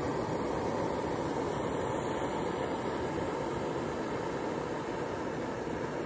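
Backpacking canister stove burning on a Coleman blended-fuel canister, its burner giving a steady, even roar as it heats a pot of water toward the boil.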